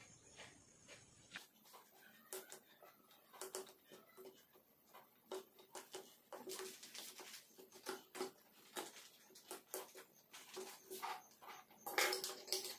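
Faint, irregular rustling and scraping of hands plucking matted wool from an Angora rabbit in a plastic basket, with a louder clatter near the end as metal scissors are picked up off the table.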